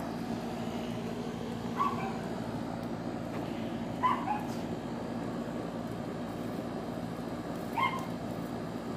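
A dog barking: a few short barks a couple of seconds apart, over a steady background hum.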